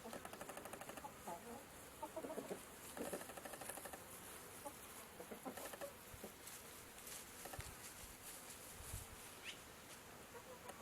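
Chickens clucking faintly in short, scattered bursts of rapid clucks.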